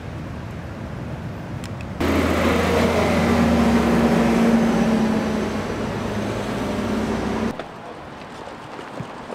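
Street traffic: a motor vehicle's engine running close by, a steady low drone with a hum, that starts and stops abruptly about two seconds in and near the end. Before and after it there is quieter street noise.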